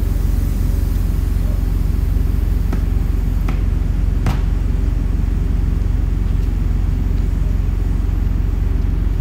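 A steady low mechanical drone, with three sharp knocks about three to four seconds in, while the bead of a heavy truck tire is being broken loose from its wheel.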